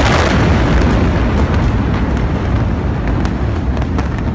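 Rolling rumble of a huge explosion, which struck just before. It is loud and slowly fades, with scattered sharp cracks and pops through it.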